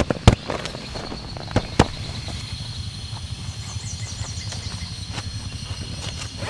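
Bedding being handled on a camp cot: a few sharp thumps and pats in the first two seconds as a pillow and sleeping bag are set down and patted flat, followed by a steady low background.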